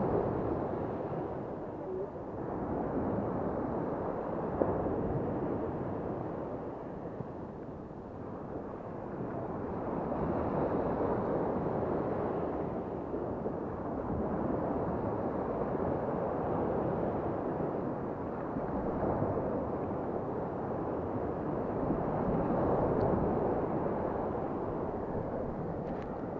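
Sea waves washing onto the shore, a continuous rushing noise that swells and subsides every several seconds.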